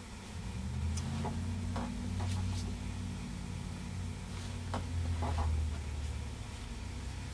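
A steady low hum, with a few faint ticks and rustles from hands handling a wooden drop spindle and wool.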